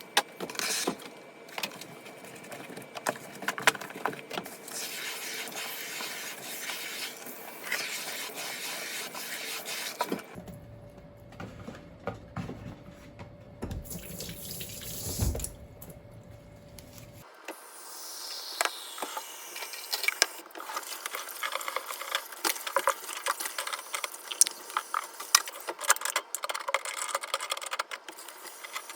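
Water running and splashing at a sink during cleaning, with scattered knocks and clatter. The sound changes abruptly twice, where separate clips are cut together.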